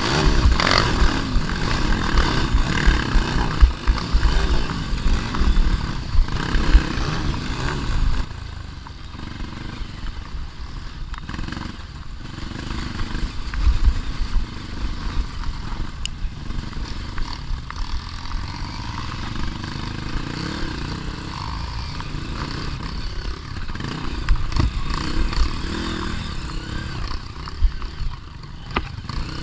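Off-road dirt bike engine revving up and down unevenly as it climbs a rocky trail. About eight seconds in it drops to a lower, steadier running.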